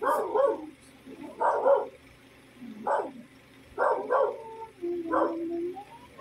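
A dog barking in short bursts, several times, often two barks close together, with one longer drawn-out call about five seconds in.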